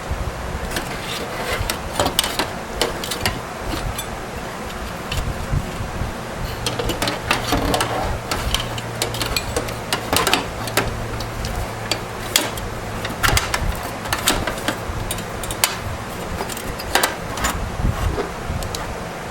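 Irregular clicks, knocks and scraping of parts being handled inside a desktop computer case, over a low background rumble, with a steady low hum for a few seconds in the middle.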